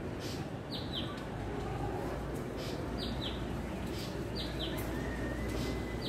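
A bird calling in repeated pairs of short, high, falling chirps, one pair about every one and a half seconds, over steady outdoor background noise.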